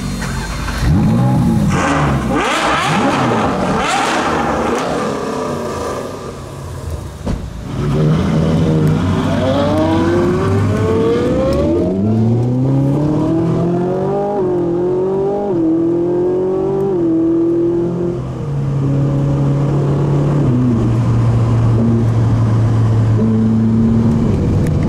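Ferrari sports-car engines revved hard, their pitch swooping up and down. Then, heard from inside a Ferrari's cabin, an engine pulls hard through several quick upshifts, its pitch climbing and stepping down at each shift, before settling into a steady cruise in the last few seconds.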